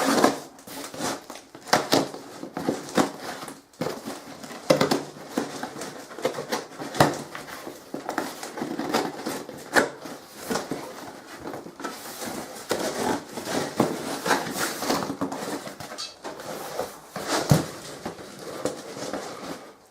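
A parcel being opened and unpacked by hand: irregular rustling, scraping and tearing of cardboard and packaging, broken by short knocks and clicks.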